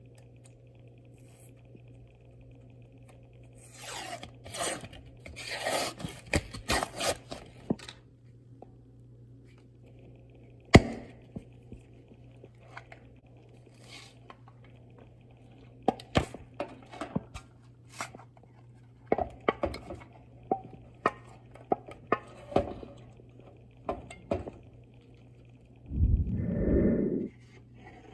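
Kitchen handling sounds: scraping and rustling, with scattered sharp knocks and clicks from utensils and containers being picked up and set down. There is one loud knock a little over ten seconds in, and a longer, heavier scrape near the end.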